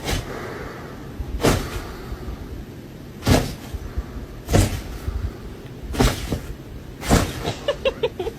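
A series of about six sharp knocks or thuds, roughly one every one to two seconds.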